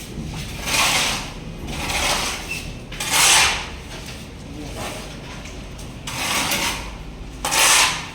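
Five rough scraping or rubbing strokes at uneven intervals, each lasting under a second.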